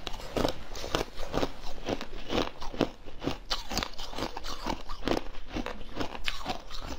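Biting into and chewing a block of frozen jelly, close to the microphone: a quick run of sharp, crackling crunches, several a second, as the icy jelly breaks between the teeth.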